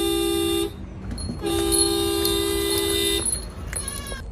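Car horn honked twice: a short blast ending under a second in, then a longer one of nearly two seconds, each a steady two-note tone. It is the signal the cows know as his arrival.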